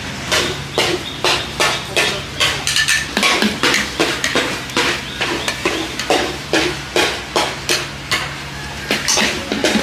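Stir-frying in a wok: a metal spatula scraping and striking the pan about two to three times a second over a steady sizzle and a low burner hum.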